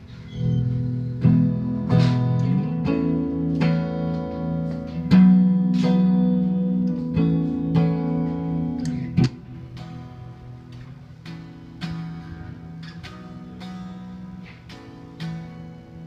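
Electric guitar chords strummed through a Marshall JVM410H amp head on its clean channel (orange mode) with reverb on, ringing out between strums. About nine seconds in there is a sharp click and the playing carries on noticeably quieter.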